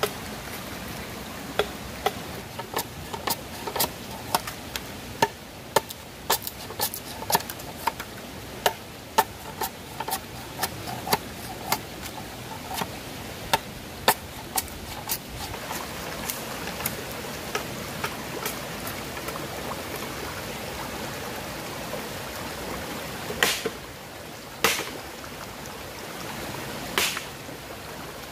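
Machete chopping into a bamboo pole, sharp knocks at about two a second for the first half, over the steady rush of a shallow stream. Near the end come three louder, separate knocks.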